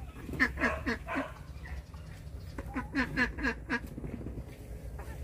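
Domestic ducks quacking in two quick runs of short calls, about four near the start and about six in the middle.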